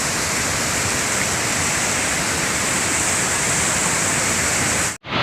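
Waterfall rushing with a steady, even roar that cuts off abruptly about five seconds in.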